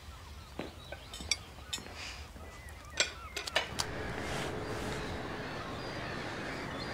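Scattered clinks of cutlery against plates and glasses at a dinner table. About four seconds in, a steady outdoor rush of wind takes over, with a few faint high chirps.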